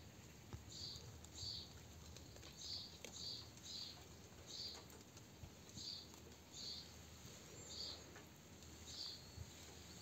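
A small bird chirping repeatedly: about ten short high chirps, roughly one a second at uneven spacing, over a faint steady hiss.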